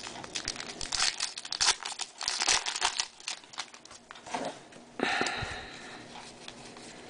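Foil wrapper of a baseball card pack being torn open and crinkled, crackling densely for about three seconds, followed by a short rustle about five seconds in.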